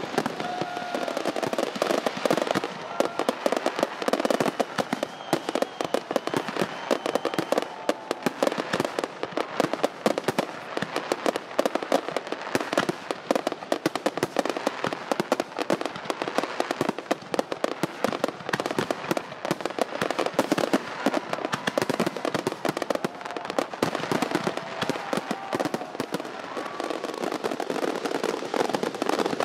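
Fireworks crackling and popping without a break, many small sharp bangs a second.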